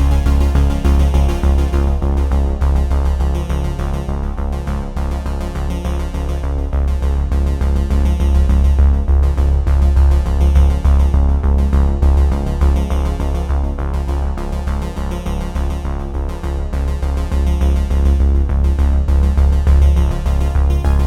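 Background music: an upbeat electronic synthesizer tune with a steady beat and a heavy bass line.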